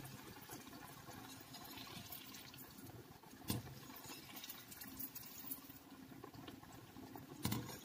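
Cashew appam deep-frying in groundnut oil in a steel kadai on a low flame: a faint, soft sizzle of fine bubbles. A couple of light taps from the wire skimmer in the pan, one about three and a half seconds in and a louder one near the end.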